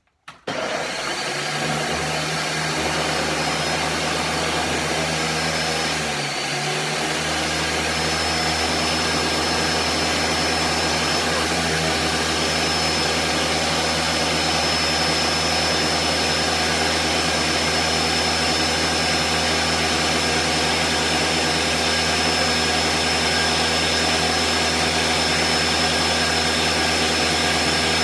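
Countertop blender switching on and running steadily with a high whine, grinding garlic, habanero and liquid ingredients into a smooth jerk sauce. The motor sound wobbles briefly about six seconds in, then runs on evenly.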